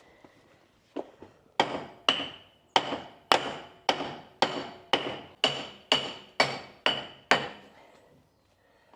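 A hammer striking steel on an old International 785 tractor's seized steering parts: about a dozen ringing blows at roughly two a second, driving stuck parts apart. They stop about a second before the end.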